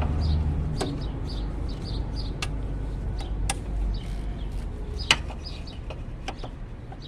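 Sparse sharp clicks and knocks of a 14 mm socket wrench being fitted and worked on engine bracket bolts, the loudest about five seconds in, with birds chirping in the background. A low rumble stops within the first second.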